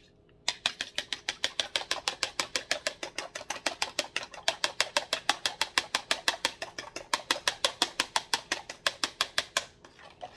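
Fork beating eggs in a plastic container: rapid, even clicks of the metal tines against the plastic, about seven a second, stopping briefly near the end.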